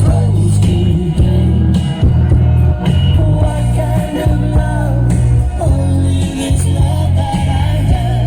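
Loud music with a heavy, rhythmic bass line and a singing voice.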